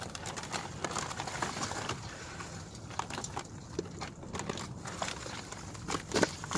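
Charcoal briquettes poured from a paper bag into a charcoal chimney: a dense run of clattering knocks, with a few louder ones about six seconds in.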